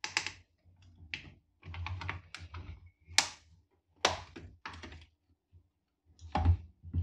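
Irregular clicks and knocks of hard plastic being handled, as the unscrewed back cover of an LED TV is worked loose and lifted off.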